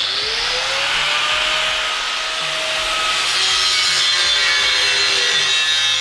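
Angle grinder with a thin cut-off disc cutting a V-shaped pie cut into 3 mm steel angle iron: a steady, loud grinding hiss, with the motor's whine rising in pitch over the first second or so.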